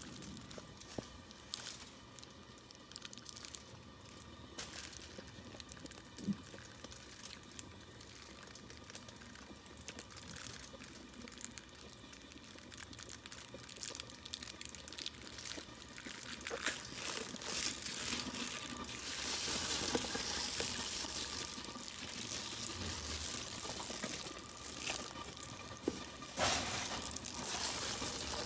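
Paper liner rustling and crinkling as a sheet of raw pizza dough is peeled and unrolled from it, with small scattered handling clicks and a louder stretch of rustling past the middle.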